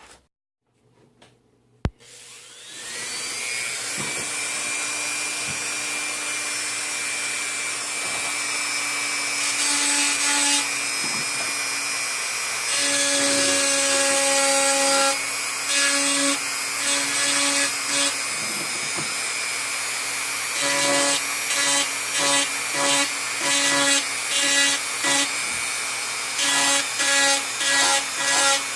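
Flat sander switched on with a click about two seconds in, spinning up to a steady whine, then deer antler ground against it. The grinding is steady at first, then comes and goes in short, even passes about once a second near the end.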